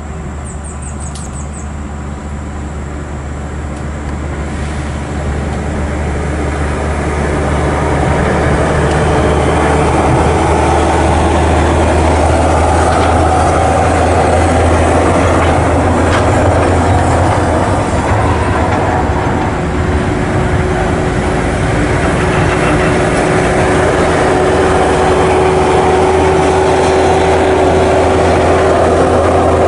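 Volvo FH16 dump truck's diesel engine pulling under load as the truck approaches, with the heavy rumble of the truck and its tyres on the dirt road. The sound grows louder over the first several seconds and then holds steady, and a steady whining tone joins a little past the middle.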